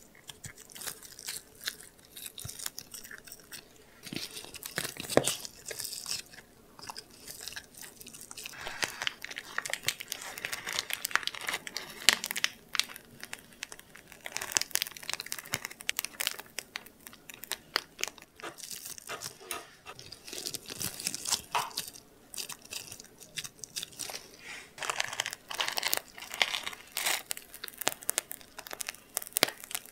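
Plastic piping bag crinkling and squelching as cream-cheese whipped cream is squeezed out over Oreo cookies, in irregular crackles throughout. Near the start, the cookies are pressed into the cream.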